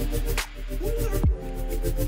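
Background music with a steady beat: deep kick drums about once a second under held synth chords.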